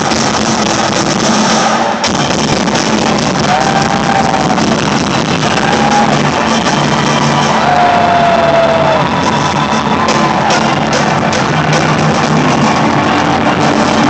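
Live rock band playing with a vacuum cleaner used as an instrument: several short whining notes that bend up and down in pitch rise over the band. Recorded on a phone from the audience.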